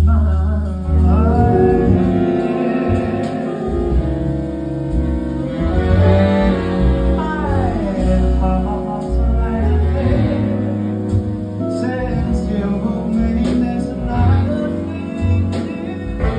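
Male jazz vocalist singing into a microphone over a live big band, with a deep bass line underneath. About halfway through his voice glides down in one long phrase.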